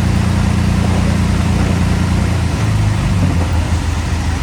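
Diesel engine of heavy earthmoving machinery running steadily with a low, deep hum, its tone changing slightly a little past halfway.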